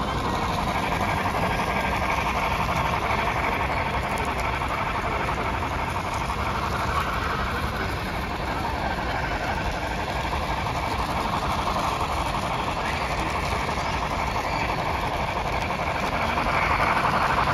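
Steady background noise of a busy train-show hall: crowd chatter mixed with the running of model trains on the layouts.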